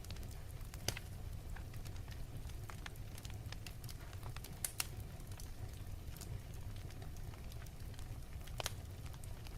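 Wood fire crackling, with sharp pops about a second in, two close together near the middle and another near the end, over a low steady rumble.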